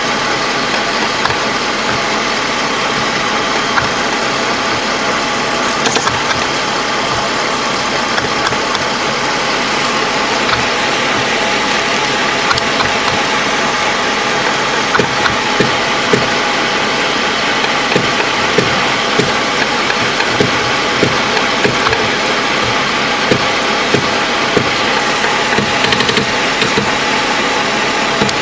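LAV III armoured vehicle's diesel engine running steadily, heard from inside the hull, with irregular short sharp cracks over it that come more often in the second half.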